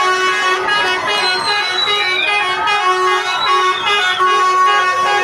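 Semi-truck horns honking in a series of long and short blasts, several steady tones sounding together, over a background of higher wavering sounds.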